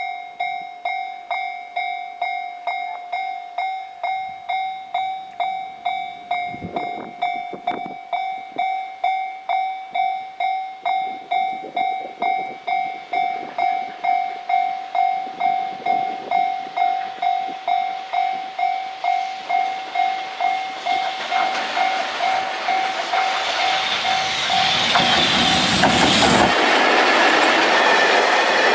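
Japanese level crossing warning bell ringing in steady pulses, about two a second. From about 21 seconds in, a freight train hauled by an EF210 electric locomotive comes up and starts passing the crossing, and its rumble grows until it drowns the bell near the end.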